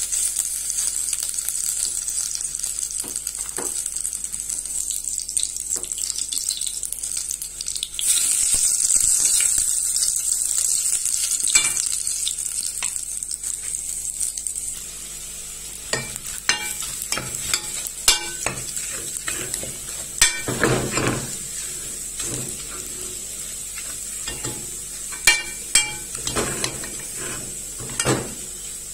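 Ground egusi (melon seed) paste sizzling as it is dropped into hot oil in a pot, with the sizzle getting louder about 8 seconds in. From about halfway on, the sizzle is quieter and a spoon stirs and scrapes the frying egusi against the pot, making repeated sharp clicks.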